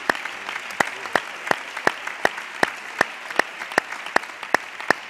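Parliamentary deputies applauding. One pair of hands clapping close to a microphone stands out above the rest, very evenly at about three claps a second.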